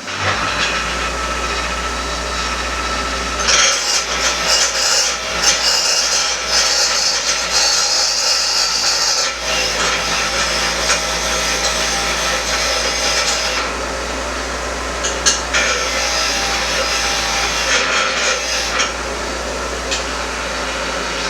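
Power-tool wire wheel starting up and running with a steady motor hum. Twice, for several seconds each time, there is loud scratchy brushing as the rear axle shaft is held against the wheel to scour off surface rust.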